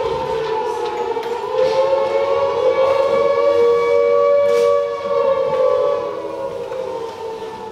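Air-raid siren played as a stage sound effect: a steady wailing tone that sways slightly in pitch, then fades away over the last couple of seconds. It warns of an air raid.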